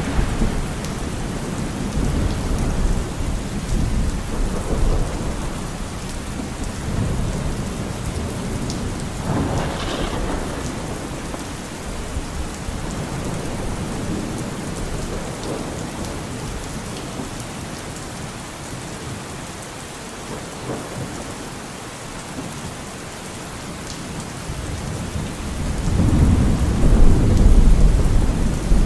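Steady rain falling, with rolls of thunder; a long, low rumble of thunder builds near the end.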